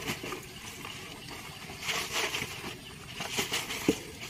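Wet mesh fish-trap net being handled and shaken out over a plastic bucket: uneven rustling and patters as the net and the last of the catch move, with a sharp knock near the end.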